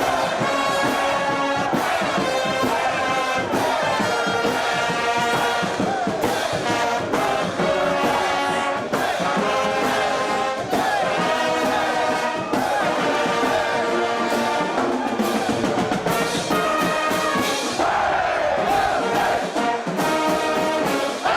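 Brass band music playing: trumpets and trombones carrying a tune at a steady, loud level.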